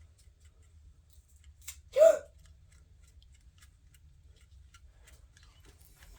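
Faint scattered clicks and rustles of hands working adhesive grip tape onto a plastic pistol frame. About two seconds in comes one short, loud, high vocal squeak.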